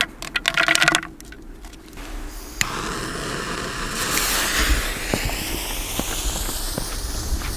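Handling clicks as the shell and its cartridges are loaded into a firework mortar tube. Then a lighter flame hisses on suddenly, and the shell's fuse catches and burns with a steady, sputtering hiss that grows brighter, throwing sparks before the launch.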